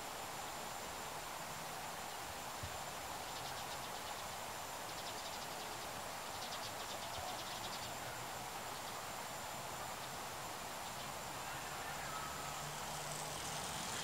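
Outdoor background ambience: a steady hiss with three short bursts of rapid, high-pitched pulsed chirring in the middle, over a faint low hum.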